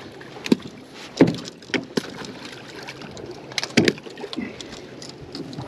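Scattered sharp knocks and clicks of fishing gear being handled aboard a boat, loudest about a second in and again near four seconds in, over the steady wash of water and wind.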